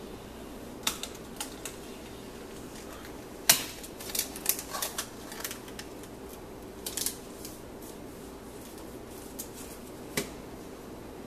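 Irregular light clicks and taps, as of small things handled on a tabletop, with the loudest about three and a half seconds in and a cluster just after it, over a steady low hum.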